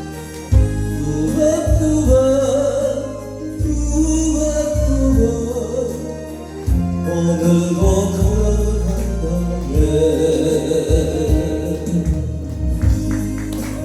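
A singer singing a song over backing music with a strong bass and a steady beat.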